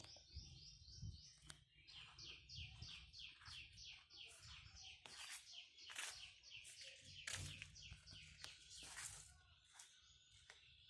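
Faint bird chirping: a long run of short, high, falling notes, about three a second, with a few soft clicks among them.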